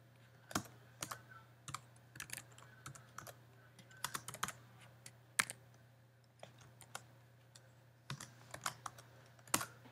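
Typing on a computer keyboard: irregular keystrokes in short quick runs, with brief pauses between them, over a faint steady low hum.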